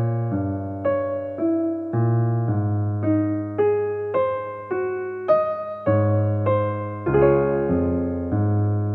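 Background music on electric piano: single notes struck about twice a second, each fading, over held bass notes.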